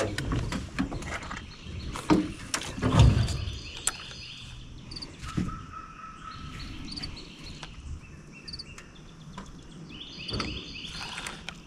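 Birds chirping over outdoor river-swamp ambience, in short repeated high calls. There are a few knocks and clicks in the first few seconds.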